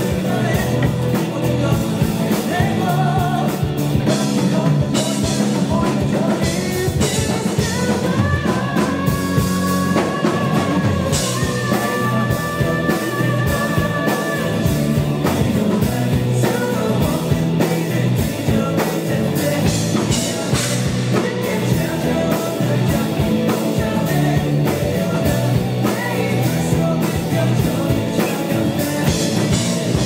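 Live rock band playing loudly: drum kit, electric guitar and bass guitar under a lead vocal, with a long held note near the middle.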